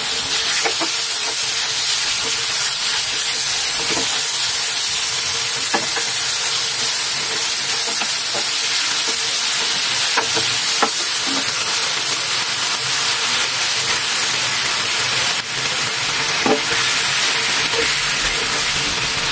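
Marinated beef sizzling steadily in a hot ridged grill pan, with scattered clicks and scrapes of a cooking utensil turning and spreading the meat.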